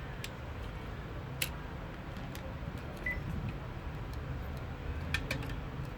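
Plastic parts of a Panasonic cordless phone handset being handled and fitted together: a few scattered sharp clicks, the loudest about one and a half seconds in and a quick cluster near the end, over a low steady rumble.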